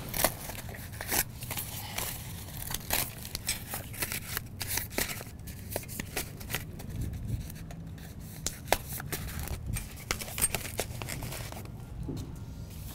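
Packing material being stripped off a new bicycle: irregular crinkling and tearing of plastic wrap with scattered sharp clicks and snaps, thinning out near the end.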